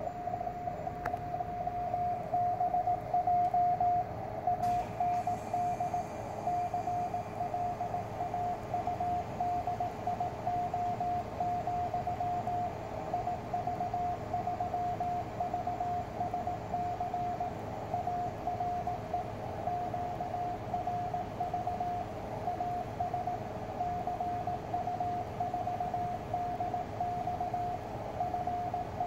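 Morse code (CW) received on a shortwave radio: a single mid-pitched tone keyed in dots and dashes at about 17 words per minute over steady band hiss. It is the ARRL bulletin being sent in fair conditions.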